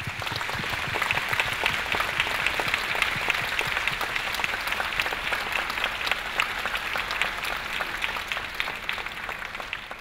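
Audience applauding: dense clapping from a large crowd that breaks out at once, holds steady, and starts to die away near the end.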